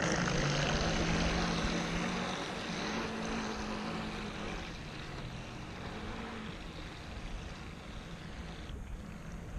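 Small radio-controlled model boat running across open water and heading away. Its motor hum wavers in pitch, and the hum and the spray hiss fade over the first few seconds as it gets farther off.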